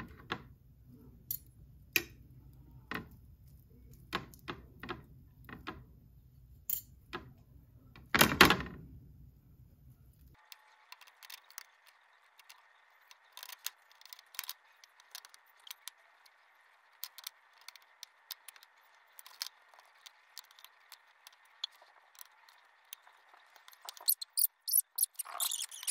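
Irregular clicks and knocks of kitchen utensils, with one louder knock about eight seconds in. About ten seconds in the background changes suddenly to a faint steady hiss with more light clicks, and there is a quick run of louder clatter near the end.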